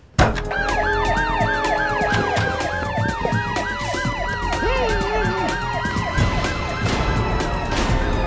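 Several emergency-vehicle sirens start abruptly and sound together: one in a fast, repeated up-and-down yelp, others wailing slowly. Under them runs a dense clatter of clicks and knocks.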